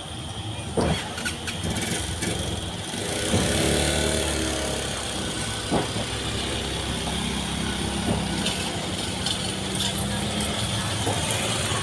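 Small motorcycle engines running on a busy street. One engine rises and then falls in pitch about three seconds in, a steady engine hum follows, and there are a few scattered knocks.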